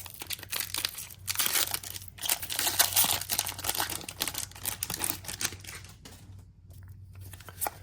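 Foil wrapper of a Pokémon card booster pack being torn open and crinkled in the hands. The crackling is busiest in the first few seconds and thins out near the end.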